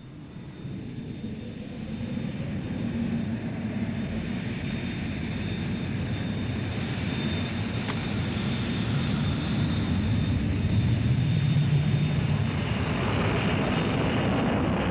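Jet airliner engine noise, growing louder over the first several seconds: a rumble with a thin, steady high whine above it.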